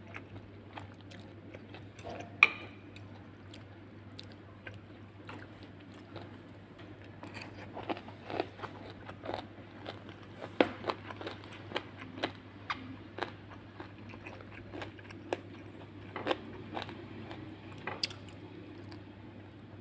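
Close-up eating: crunchy food bitten and chewed with sharp, irregular crunches. There is one loud crunch about two seconds in, and the crunches come thickest in the middle.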